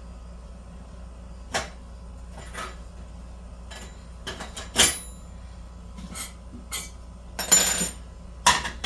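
Kitchen items being handled: a string of separate knocks and clatters, the sharpest about five seconds in and a short ringing clatter near the end, over a steady low hum.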